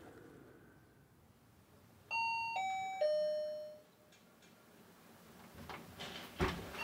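Door intercom chime ringing three descending notes, each about half a second apart, the last one ringing out for nearly a second. Near the end comes a single thump.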